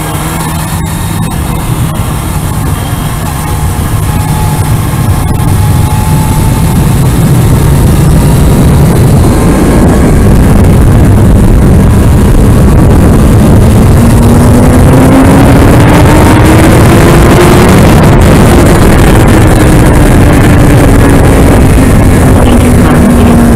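Kawasaki Ninja ZX-6R inline-four engine pulling hard, its pitch rising steadily through the middle and then slowly easing down, under wind rush on the helmet microphone that grows louder as speed builds and becomes the loudest sound.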